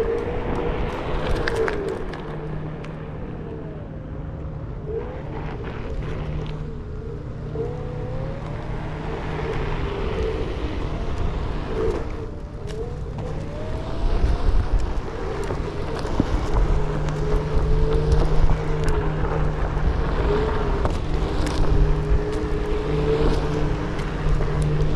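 Hub motor of a DIY VESC-controlled Onewheel-style board whining, its pitch sliding up and down as the board speeds up and slows, over the tyre rolling on asphalt and concrete. The ride gets louder about halfway through.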